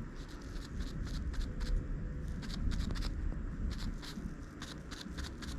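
Wet towel rubbing and dabbing over the painted bicycle fender, a quick irregular run of soft scuffs, several a second.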